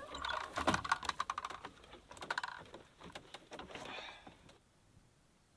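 Wooden ladder knocking and clattering as it is swung up and hooked onto the back deck of a wooden truck camper: a quick run of light knocks, fewer knocks after a couple of seconds as the ladder is climbed.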